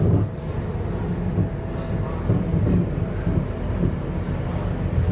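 Scania K230UB city bus heard from inside the passenger cabin while under way: the rear-mounted nine-litre five-cylinder diesel engine running steadily, with a low drone and road rumble.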